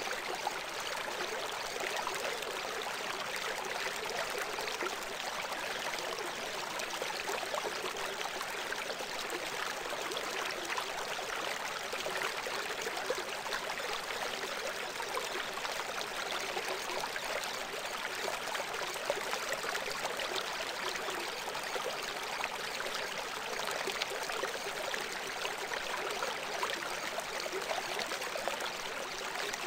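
Steady running-water sound like a flowing stream, an even rushing hiss with no change, serving as the cover sound of a subliminal audio track.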